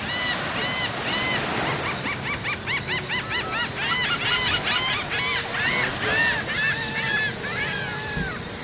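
A flock of birds calling: many short, arched, honking calls overlapping, thickest through the middle and thinning near the end, over the low wash of small surf.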